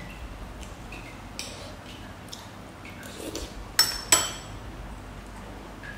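A metal spoon clinking against a dish during a meal: a few short, sharp clinks, the loudest two close together about four seconds in.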